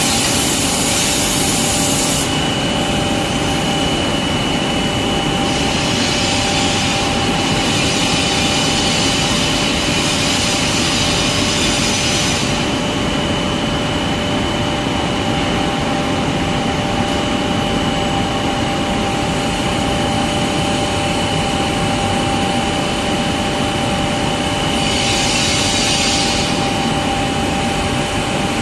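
Automatic glass loading table and factory machinery running: a steady mechanical hum with a few steady whining tones, cut across by several bursts of high hiss lasting one to three seconds.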